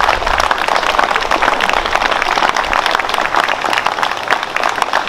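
Crowd applauding: many hands clapping in a dense, even patter that eases slightly near the end.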